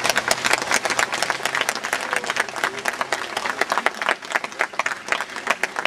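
A crowd applauding: many people clapping at once, easing off a little near the end.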